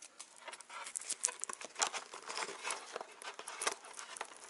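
Handling noise from a fabric helmet liner and foam padding being worked and pressed into the rim of a helmet shell: irregular rustling and scratching with small clicks.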